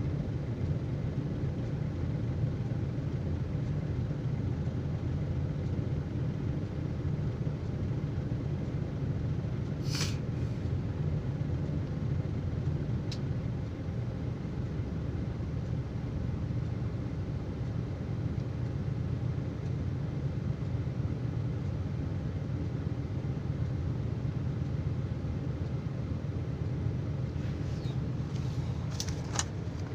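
Diesel truck engine running steadily, a low even rumble, with a short sharp click about ten seconds in.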